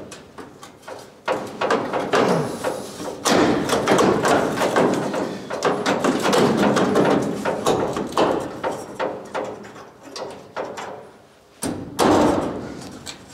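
Steel inner rocker panel of a 1961 VW Bus being shifted and knocked into place against the floor supports: a run of thumps and metal knocks, easing off briefly, then one loud knock near the end.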